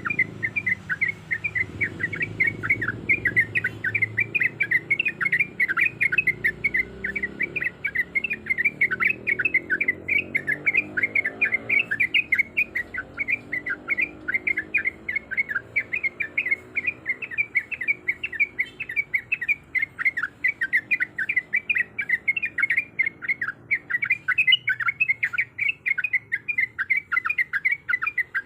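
Yellow-vented bulbul (trucuk) calling in a fast, unbroken chatter of sharp repeated notes, about four to five a second, a lure call of the kind keepers play to set a quiet bird singing.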